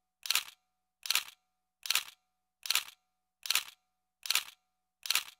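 Camera shutter clicks, seven of them, about one every 0.8 s, each a short double click.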